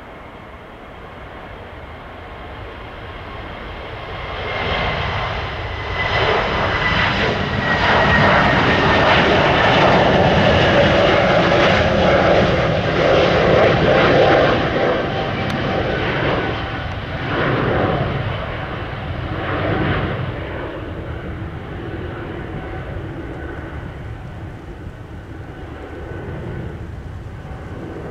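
Airbus A321neo's Pratt & Whitney geared turbofan engines at takeoff thrust as the airliner rolls and climbs past. The jet noise swells to a peak about halfway through, with a whine that falls in pitch as it passes, then fades as the plane climbs away.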